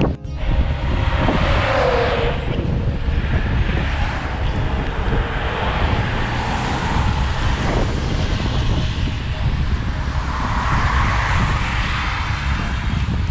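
Wind noise on the camera microphone while cycling on a wet road, with car traffic hissing past on the wet tarmac. Two louder swells, about two seconds in and again near the end, are cars going by.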